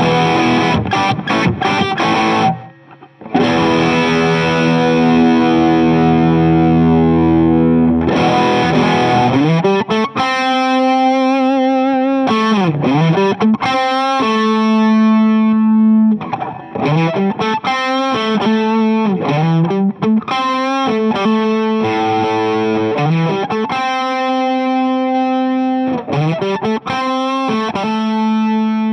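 Electric guitar played with overdrive from a King of Tone–style dual overdrive pedal into a Fuchs ODS amp simulation. Short choppy chords and a held ringing chord give way, about ten seconds in, to a lead line of bent single notes, some held with vibrato.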